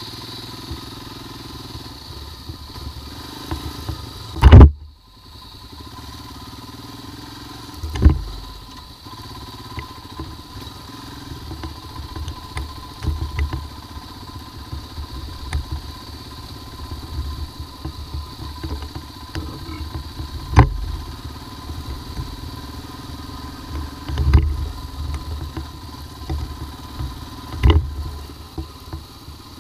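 Royal Enfield Himalayan's single-cylinder engine running at low speed over a rough dirt track, its rumble swelling and easing with the throttle. Several sharp knocks come from the bike jolting over bumps; the loudest is about four and a half seconds in, and others fall near eight seconds and three times in the last ten seconds.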